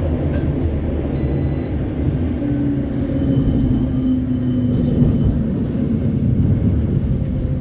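Inside a CAF Urbos 3 tram of the West Midlands Metro running between stops: a steady low rumble of wheels on rail and running gear. A low hum swells and fades midway, with faint high whistling tones above it.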